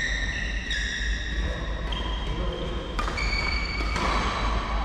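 Court shoes squeaking on a wooden sports-hall floor, high held squeaks that shift pitch every second or so, with a couple of sharp racket-on-shuttle clicks about three and four seconds in over a steady low hum.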